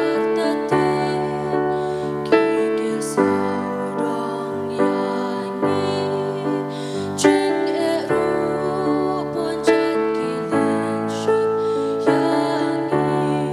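Female vocal trio singing a slow, gentle song with electric keyboard accompaniment, the keyboard sounding sustained chords about once a second.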